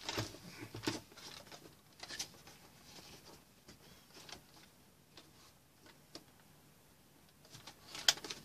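Handling noise from a plastic Polaroid Supercolor 635CL instant camera turned over in the hands: scattered soft clicks, taps and rustles, with a cluster in the first second and sharper clicks about 8 seconds in.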